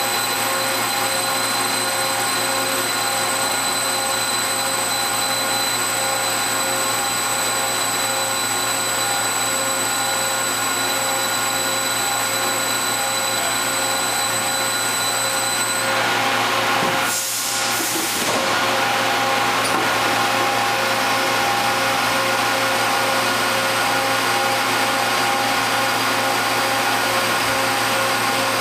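Niigata HN100B horizontal machining center's pallet pool running, a steady mechanical hum with several steady whines as a pallet is shuttled along its track. The highest whines stop about sixteen seconds in, and a brief rush of noise follows a second later.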